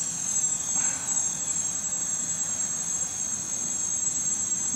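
Gaui 330-X quadcopter in flight, its electric motors and propellers giving a steady high-pitched whine.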